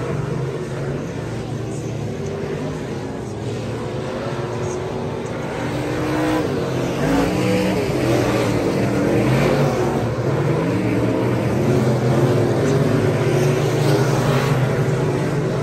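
A field of USRA limited modified dirt-track race cars running laps at speed. Several engines drone together and rise and fall in pitch as they accelerate and lift through the turns, growing louder about six seconds in.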